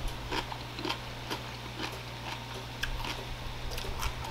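Close-up chewing of a burger: irregular soft wet mouth clicks and smacks, a few each second, over a steady low hum.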